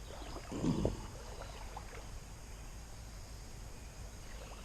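Creek water running steadily in the background, with one short louder sound under a second in.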